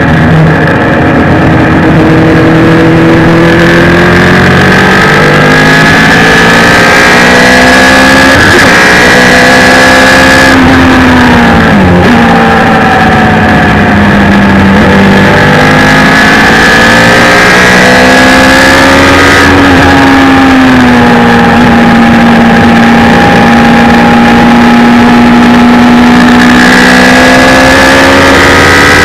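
Suzuki Hayabusa inline-four motorcycle engine in a race car at full throttle on track, its note climbing and falling with each gear change, braking and corner exit, with wind rush over the open car. The pitch drops sharply several times and climbs steadily near the end.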